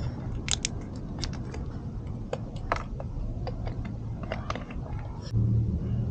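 Squeeze bottle of 80W-90 gear oil being pressed to fill a scooter's gearbox through its filler hole: scattered small clicks and crackles from the bottle. A low steady hum runs underneath and gets louder about five seconds in.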